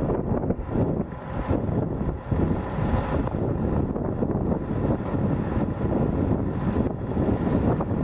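Diesel engine of a Mercedes-Benz 2429 concrete pump truck running steadily, with wind buffeting the microphone.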